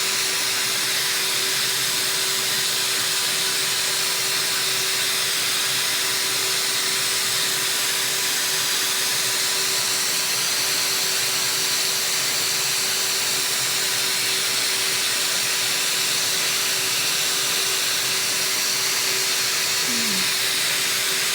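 Vacuum cleaner running steadily: an even hiss of rushing air with a constant motor hum.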